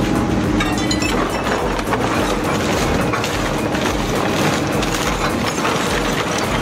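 Industrial shaft shredder crunching wood waste and scrap: a dense run of cracking and snapping over the steady drone of the machine.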